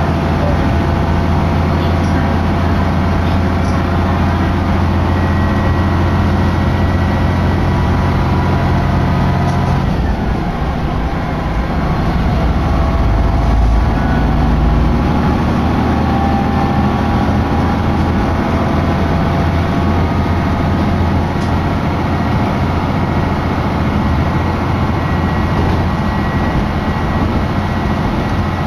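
A diesel railcar heard from inside the cabin while under way: a steady engine drone over the running noise of the wheels on the rails. About ten seconds in, the engine note changes, dips briefly and then settles at a new pitch.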